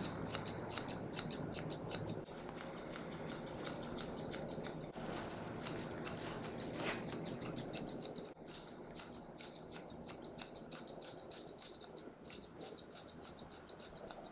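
Grooming scissors snipping through a dog's coat: a quick, steady run of sharp metallic snips, several a second.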